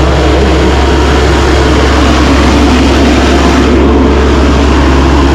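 Mini excavator's diesel engine running steadily and loudly, with a constant low hum under a broad mechanical noise.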